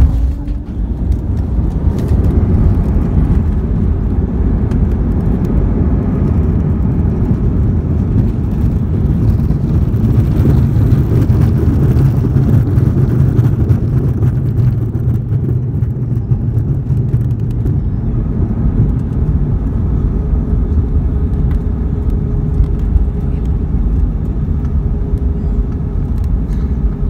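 Cabin noise of an Airbus A319-132 with IAE V2500 engines on its landing roll: a jolt at touchdown right at the start, then the loud rumble of the wheels and engines on the runway. The low rumble grows stronger in the middle, and a steady engine whine comes in over it about two-thirds of the way through.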